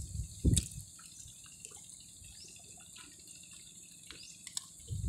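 Water dripping and trickling off a fishing net as it is pulled into a small boat, with small scattered drips and ticks. One dull knock about half a second in.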